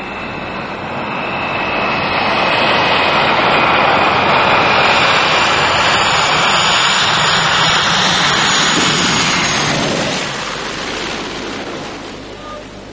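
A twin-engine turboprop plane flying low past, its engine noise swelling to a peak and then fading away, with a steady high turbine whine over it.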